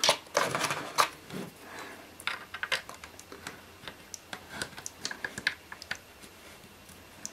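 Irregular small clicks and taps of metal screwdriver bits being handled, swapped in the screwdriver and tried against a screw head. The loudest clicks come near the start and about a second in.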